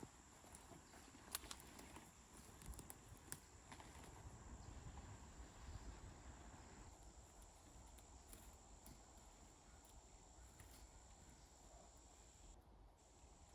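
Near silence: faint outdoor ambience with a steady high hum and a few light clicks in the first few seconds.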